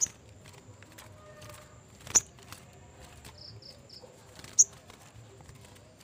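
Small caged songbird giving three short, sharp, very high chirps about two seconds apart, with a softer run of three quick notes between the second and third, over faint scattered ticks.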